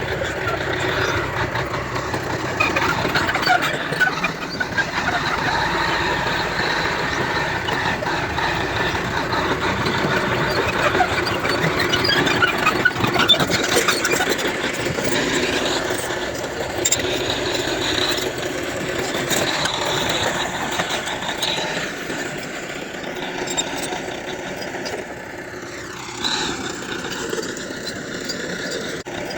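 Heavy diesel earthmoving machinery, a bulldozer or dump truck, running steadily with a high-pitched squealing over the engine noise. It eases off a little in the last several seconds.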